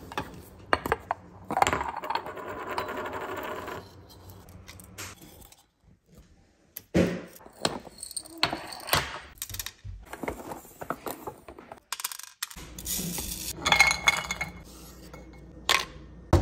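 Glass spice jars with wooden lids being handled and set down on a stone counter, and whole spices dropped onto a plate: a scattered series of sharp clinks, taps and knocks with some rustling.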